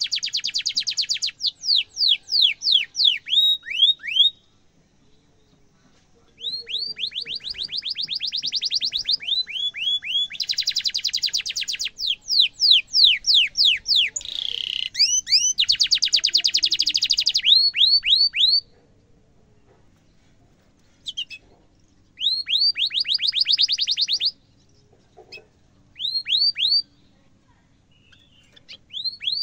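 Caged canary singing: phrases of fast rolled trills mixed with rapid downward-sweeping chirps, high-pitched, broken by pauses of a second or two.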